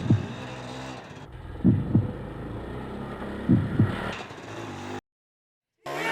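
A heartbeat sound effect, three double thumps about two seconds apart, over the steady low hum of an idling engine, most likely the dirt bike's. The sound cuts to silence about five seconds in.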